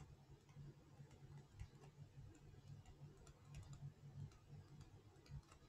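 Near silence: faint, irregular ticks of a stylus tapping on a tablet screen while handwriting, over a low steady hum.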